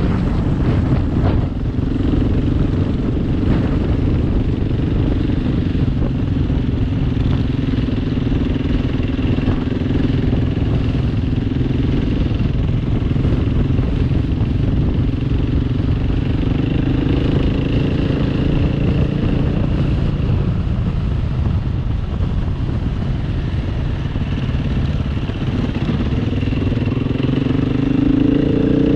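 Trail motorcycle engine running at a steady cruising pace on a rough grass track, then rising in pitch near the end as the rider opens the throttle.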